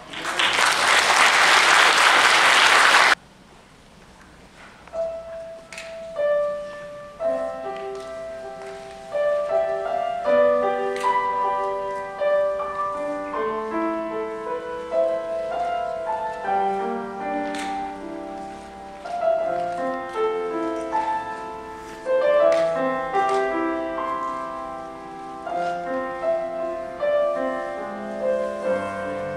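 Audience applauding for about three seconds, then cutting off abruptly. A couple of seconds later a piano begins playing a melody over chords.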